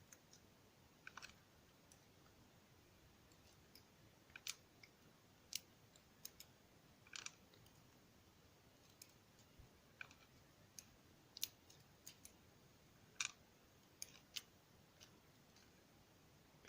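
Faint, irregular small metal clicks of lock pins and springs being taken out of a dimple euro cylinder and set down one at a time.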